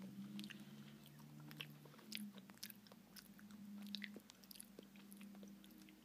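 Faint chewing and wet mouth clicks of someone eating a Blizzard soft-serve treat with M&M's candy pieces mixed in, over a steady low hum.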